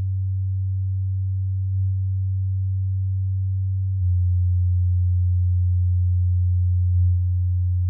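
Low, steady bass test tone of about 100 Hz played through an active bookshelf speaker and recorded in the room. About four seconds in it becomes a little louder and gains an overtone.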